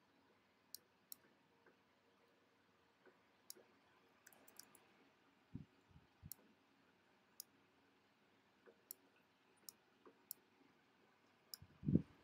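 Scattered soft clicks of a computer mouse in a quiet room, about a dozen, irregularly spaced. A few low thuds come in the middle, and a louder one near the end.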